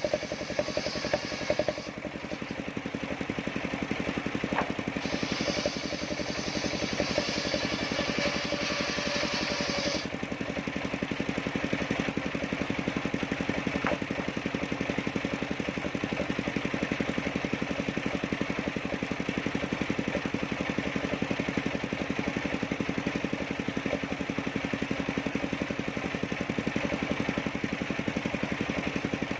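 Engine-driven circular sawmill running steadily. A high hiss of the blade cutting timber sounds in the first two seconds and again from about five to ten seconds in, then stops while the engine and blade run on.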